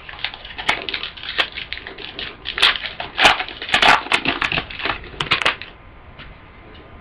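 Foil wrapper of a football trading-card pack crinkling and tearing as it is opened: a quick run of sharp crackles that stops about five and a half seconds in.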